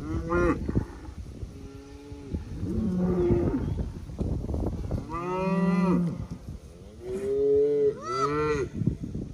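A herd of beef cattle mooing in pasture: about six long, low moos from several animals, one after another and sometimes overlapping.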